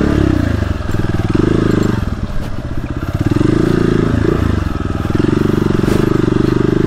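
Single-cylinder motorcycle engine pulling off-road. The throttle opens and closes, so the engine note rises and falls, with several brief dips.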